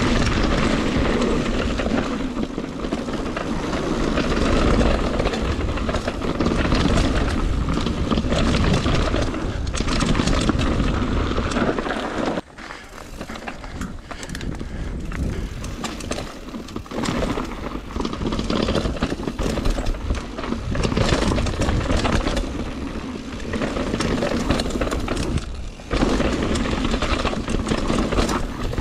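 Mountain bike riding fast downhill on a dirt and rock trail: constant wind rush and rumble on the mounted camera's microphone, with tyres rolling over dirt and the bike rattling and clicking over bumps. The noise dips sharply for a moment about twelve seconds in.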